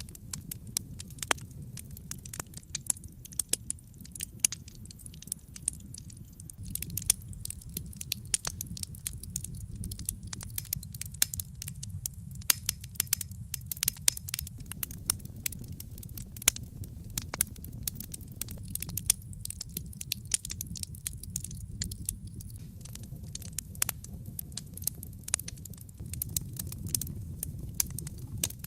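Wood fire burning in a fireplace: a steady low rumble of the flames with dense, irregular crackles and sharp pops from the burning logs.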